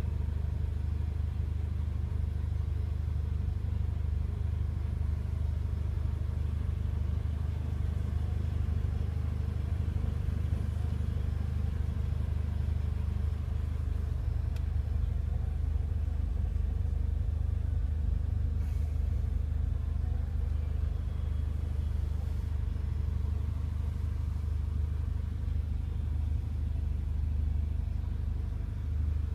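Steady low rumble with a constant low hum, heard inside a car's cabin.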